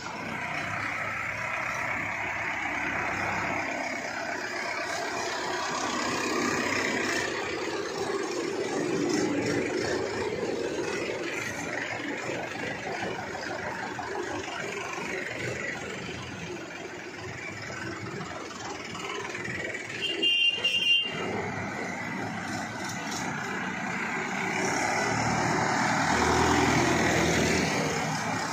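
Trakstar 550 4WD tractors' diesel engines running as the tractors drive past one after another, growing louder twice as each one passes. A brief horn beep sounds about twenty seconds in.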